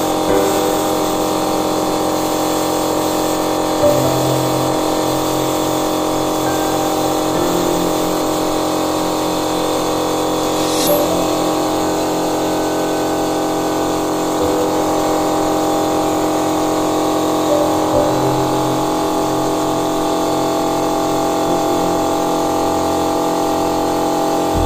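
A steady mechanical hum under background music whose bass notes change now and then.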